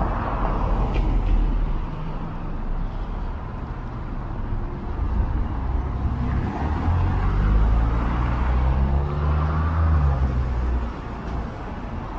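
City street traffic. A motor vehicle's engine passes close by in the second half, a low hum that shifts slightly up and down in pitch before fading about a second before the end.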